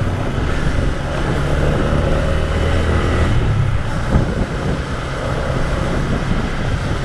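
A vehicle engine running steadily while moving along, with wind noise on the microphone.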